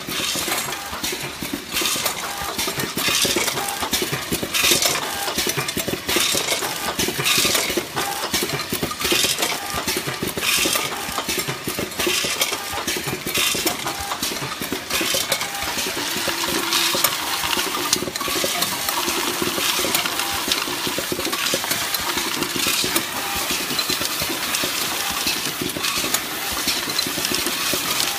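Automatic mothball counting and bagging machine running: a constant, irregular clatter and clinking of hard mothballs rattling through the feeder and counting chutes, over the steady mechanical running noise of the machine.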